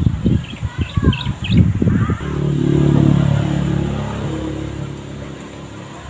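A motor vehicle's engine passing by, a steady hum that swells about two seconds in and then slowly fades. Birds chirp over low rumbling in the first two seconds.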